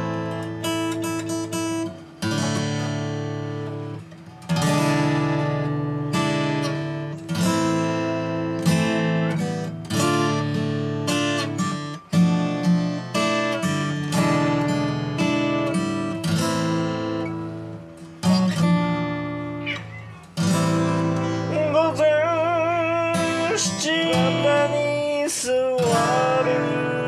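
Acoustic guitar strung with light-gauge strings, played with a thumb pick: plucked chords, a fresh chord every second or two. In the last few seconds a cat yowls along with a wavering pitch over the guitar.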